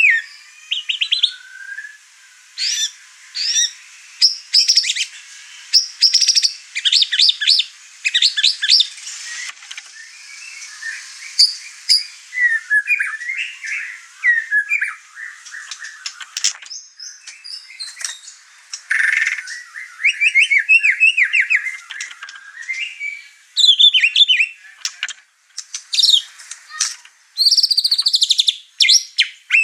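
White-rumped shama (murai batu) singing excitedly, running through its repertoire of learned song material: a continuous string of short, varied phrases of clear whistles and rapid chattering note runs, one phrase quickly following another.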